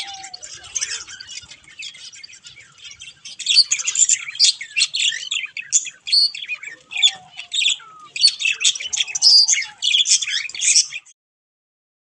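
Budgerigars chirping and squawking in rapid, overlapping calls, getting louder about a third of the way in and cutting off abruptly just before the end.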